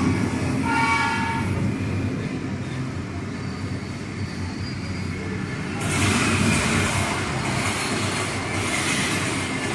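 Recorded train sound effect from the mime's soundtrack, played over the hall's speakers. A horn sounds about a second in over a continuous running rumble, and a louder rushing hiss joins at about six seconds.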